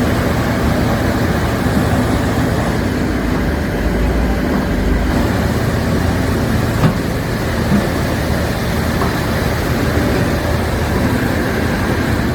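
Heavy diesel machinery engine running steadily, with a brief knock about seven seconds in.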